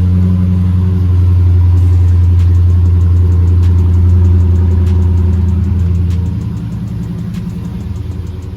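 Dodge Challenger Scat Pack's 6.4-litre HEMI V8 running just after a start-up, with a steady low exhaust note. About six seconds in, the note and level drop as the idle settles lower.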